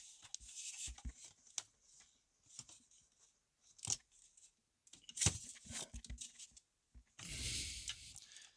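Diesel heater unit being set back into its compartment: scattered light knocks and clicks, a cluster of clunks about five seconds in, and a scraping rustle lasting about a second near the end.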